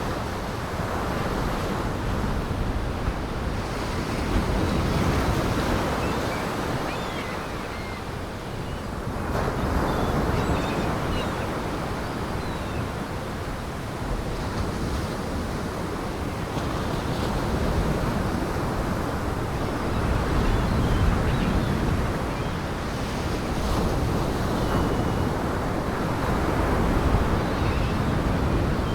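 Heavy surf breaking on the shore in gale-force wind. The waves and wind swell and ease every several seconds.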